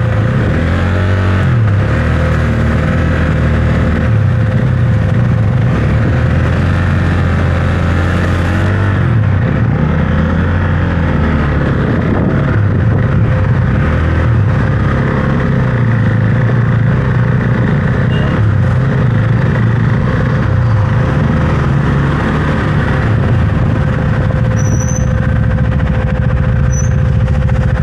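Husqvarna Svartpilen 401's single-cylinder engine running continuously under way, its revs rising and falling now and then with the throttle.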